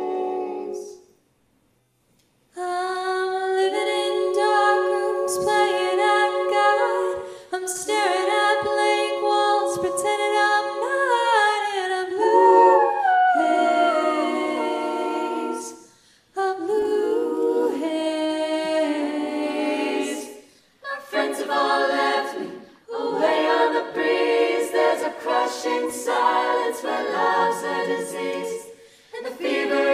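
Women's a cappella group singing in close harmony, with held chords under a solo voice on a handheld microphone. The singing stops for about a second and a half near the start, then goes on in phrases with short breaks between them.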